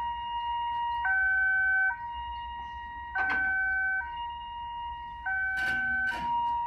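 Railway level-crossing warning siren sounding a two-tone alternating signal, switching between a lower and a higher tone roughly once a second, as the crossing closes for an approaching train. Two brief bursts of noise cut in, one near the middle and one toward the end.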